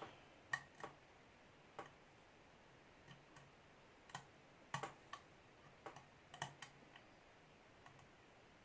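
Faint, irregular small metallic clicks and ticks from a lock pick working the pin stack of a Welch lock under tension, as pins are felt for and set.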